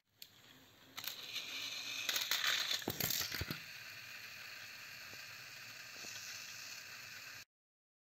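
Battery-powered Thomas & Friends toy train motors whirring, with a few sharp plastic knocks in the middle, then a steady whir that cuts off suddenly near the end.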